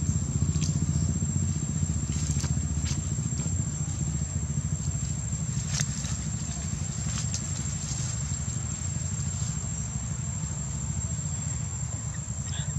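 A steady low rumble runs throughout, with a continuous thin high-pitched insect drone over it and a few faint scattered clicks.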